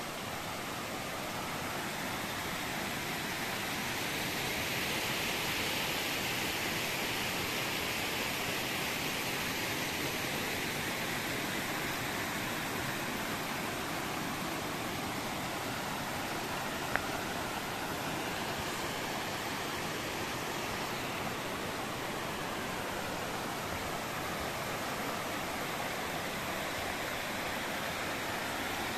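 Muddy runoff water rushing steadily over loose rocks and landslide rubble, growing a little louder a few seconds in.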